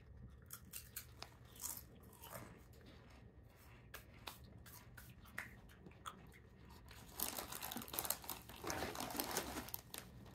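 Herr's ripple-cut potato chips crunched and chewed in short crackles. About seven seconds in, the foil chip bag is handled and crinkles.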